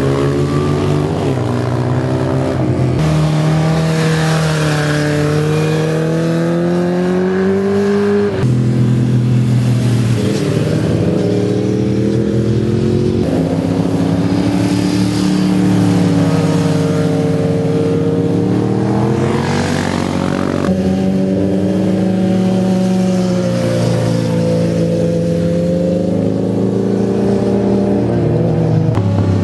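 Sport motorcycle engines passing one after another through a bend: each engine note dips as the rider rolls off into the corner and climbs again as he accelerates out. The sound changes abruptly several times as one pass gives way to the next.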